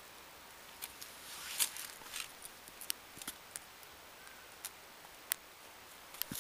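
Scattered light clicks and short rustles at irregular times, the loudest about a second and a half in, as an Alaskan malamute puppy pads on a concrete path and noses into the grass at its edge.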